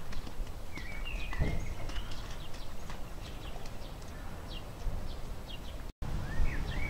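Hoofbeats of a foal and mare on a wet paddock, as scattered soft knocks, with birds chirping. The sound drops out for an instant near the end.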